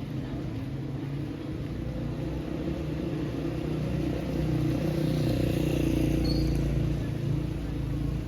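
A motor vehicle's engine running, with a low hum that grows louder through the middle and eases off slightly near the end.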